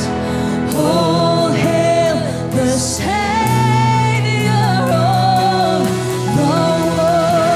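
Live worship band playing with singing: drum kit, electric and acoustic guitars, and voices holding long, wavering notes, with a few cymbal crashes.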